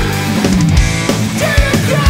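Hard rock song playing loudly: distorted electric guitars and a drum kit with a pounding kick drum, under a sung vocal line.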